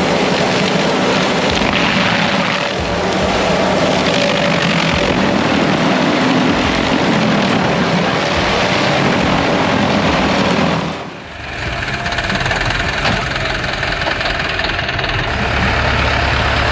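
Heavy machinery engines running steadily with dense mechanical noise. About eleven seconds in the sound cuts out briefly and gives way to a different engine running steadily at a lower, even pitch.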